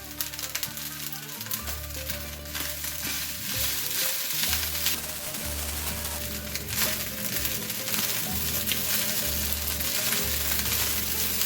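Egg fried rice sizzling in a hot pan while it is stirred and tossed, with scattered clicks of the spatula against the pan.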